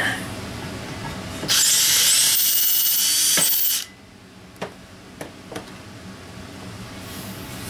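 Cordless drill running for about two seconds, cutting into the aluminium Offenhauser intake manifold to touch up one of its drilled holes, followed by a few light clicks.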